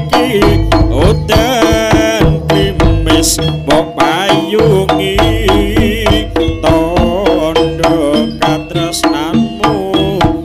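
Live jaranan gamelan music: kendang hand drums play a fast, dense rhythm over held gong and metallophone tones. A high, wavering melody line sounds above them.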